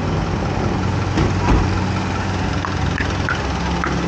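Street traffic: motor vehicle engines idling and running close by, a steady low rumble.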